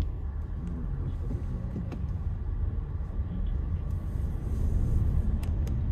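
A car driving along a street: a steady low rumble of engine and road noise.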